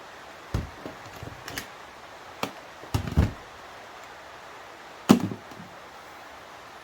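Hard parts of a seatbelt retractor mechanism and hand tools knocking and clattering as they are handled and taken apart, in several separate clunks. The loudest knock comes about five seconds in.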